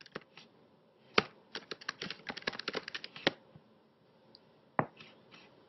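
Typing on a computer keyboard: one sharp key press about a second in, then a quick run of keystrokes lasting under two seconds, and a single further click near the end.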